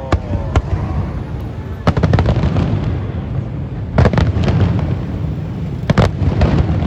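Aerial fireworks bursting: a run of loud booms, the strongest about two, four and six seconds in, over continuous crackling.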